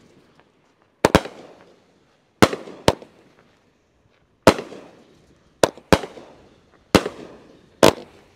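A 200-gram Snake Eyes firework cake firing its shots: about nine sharp bangs, roughly one a second with some in quick pairs, each trailing off in a short echo.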